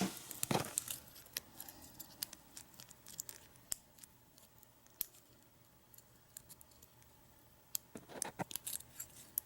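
Lock-picking tools clicking and scraping in the removed cylinder of a U-Haul disc padlock: scattered light metallic clicks, with a busier burst at the start and another about eight seconds in.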